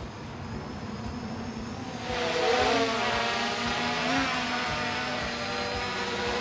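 Holy Stone HS700E quadcopter in flight, its propellers giving a steady buzz with a slightly wavering pitch. The buzz grows louder about two seconds in.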